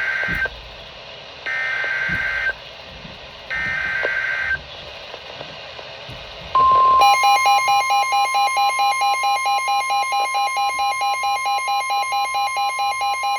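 Emergency Alert System SAME data bursts from a weather radio broadcast: three short buzzy bursts, each about a second long and two seconds apart, announcing a new alert. About halfway in, a steady 1050 Hz weather-radio warning tone starts. Over it, a shrill electronic alarm beeps rapidly, about five pulses a second.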